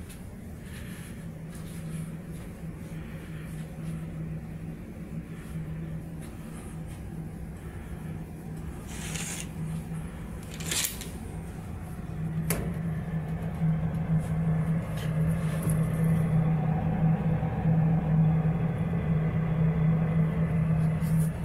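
Steady low hum of a ship's machinery running, growing louder about halfway through. Short swishes and a click come as a fabric curtain is drawn back along its rail.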